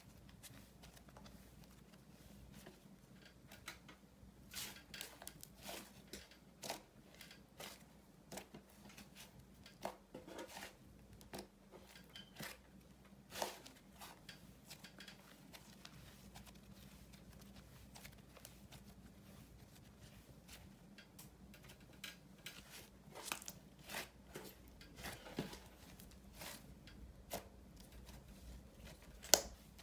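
White slime being stretched, folded and squeezed by hand, giving quiet, irregular crackles and small pops, with one sharper pop near the end.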